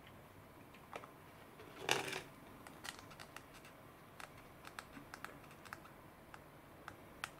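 Thin black plastic sweets tray being picked up and held in the fingers: a short scrape as it is lifted about two seconds in, then scattered light plastic clicks and ticks as the fingers grip it.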